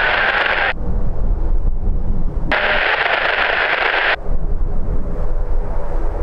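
Radio hiss that switches on and off abruptly, once at the start and again for about two seconds in the middle, over a steady low rumble from the ATR 72-500 turboprop rolling out on the runway and the wind.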